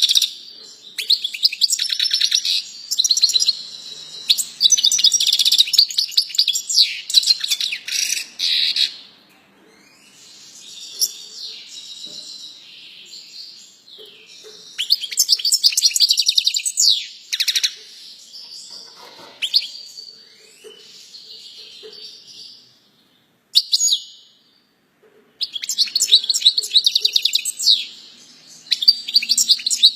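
A songbird singing long, rapid phrases of high chirps and trills, with a few quieter passages and one short pause about two-thirds of the way through.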